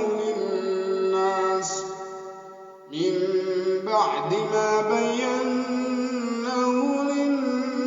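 A man reciting the Quran in a melodic chant (tajweed), holding a long drawn-out note that fades away. After a short pause for breath about three seconds in, he starts a new phrase with a rising pitch and keeps chanting.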